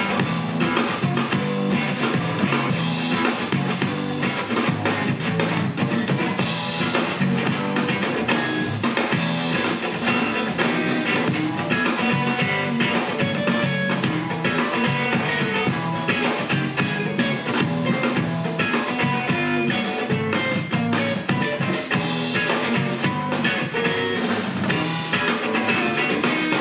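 Live trio music: electric guitar, electric bass and drum kit playing together steadily.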